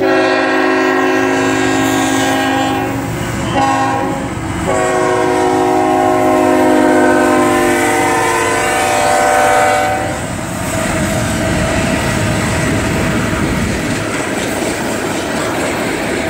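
Freight locomotive's air horn blowing a long blast, a short one and another long one, the pattern sounded for a grade crossing. Then comes the steady noise of the long freight train's cars rolling past on the rails.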